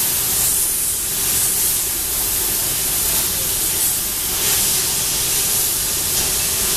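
Hempel IH-25 automatic copy-turning lathe for short wooden handles running: a loud, steady, high rushing noise from the machine, swelling a little every second or so.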